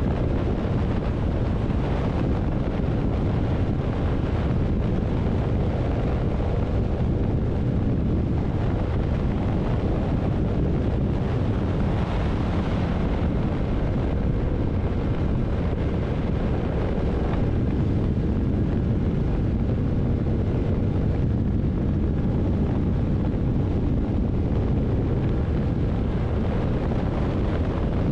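Steady wind rush over the microphone with a Yamaha MT-07 motorcycle's parallel-twin engine running at an even cruising speed.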